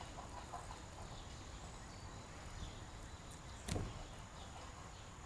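Quiet outdoor background noise, with one sharp knock about three and a half seconds in.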